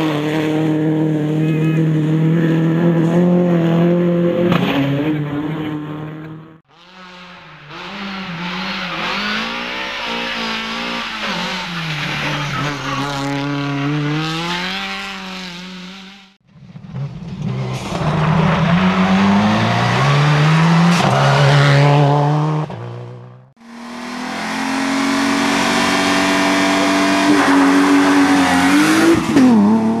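Rally cars at full throttle in four short clips cut hard one after another. First a Subaru Impreza WRC's turbocharged flat-four passes, then other cars rev up and shift through the gears. The last clip is a BMW E30 pulling away.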